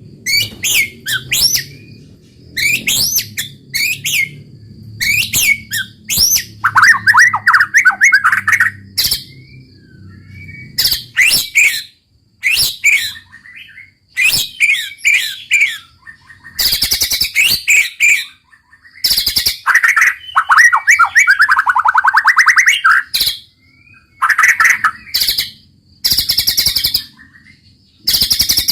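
White-rumped shama (murai batu) singing in quick bursts of whistled notes and fast rattling trills, separated by short pauses.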